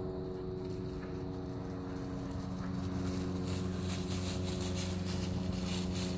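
Dry fallen leaves rustling and crunching under a bandog and a goat scuffling over them, busier from about halfway in. A steady mechanical hum runs underneath.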